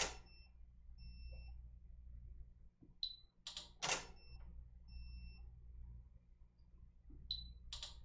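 A sequence that repeats about every four seconds, three times over: a short high beep, then the double click of a camera shutter firing, then faint steady high tones. This is a triggered water-drop photography rig firing shot after shot. A low hum runs underneath.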